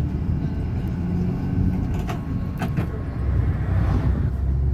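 Bus engine running with a steady low rumble, with two sharp knocks about two seconds in.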